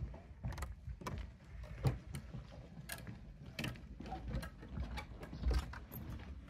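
Footsteps on a wooden plank boardwalk: irregular knocks and clicks of shoes on the boards, over a low rumble.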